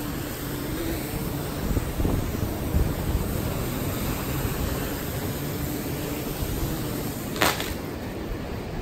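Gannet Pro waterproof drone's propellers humming faintly under heavy wind noise on the microphone as it descends. About seven seconds in, a short splash as the drone sets down on the water.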